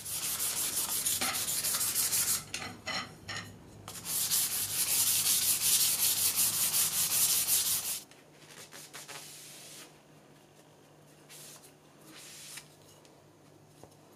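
Fine-grit sandpaper rubbed rapidly back and forth along a 10 mm carbon fibre tube, smoothing out lumps in its diameter so a bushing can slide along it without binding. The sanding stops about eight seconds in, leaving only faint rubbing as the tube is wiped with a sponge.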